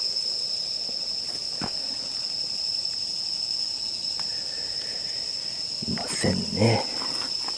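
Night insects singing: one steady, high-pitched, unbroken trill over the woodland background. A short louder low sound comes near the end.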